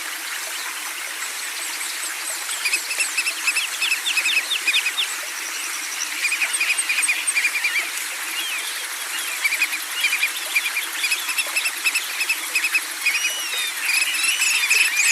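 Small songbirds chirping and trilling in quick runs of repeated high notes, starting a couple of seconds in, over a steady rushing of flowing water.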